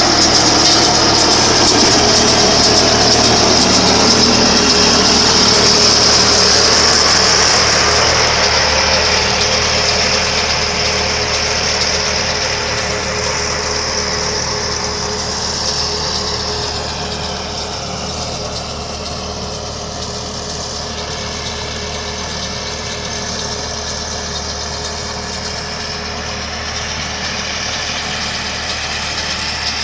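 Tractor engine running steadily, driving a Shaktiman round baler, with a loud high-pitched hiss over the engine in the first half. The hiss fades from about halfway through and the whole sound grows quieter.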